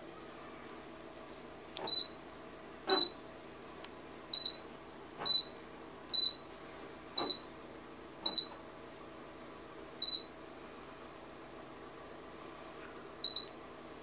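Panasonic NE-1880 commercial microwave's keypad beeping as its buttons are pressed: nine short high beeps at irregular intervals, several with a faint click of the key, over a faint steady hum.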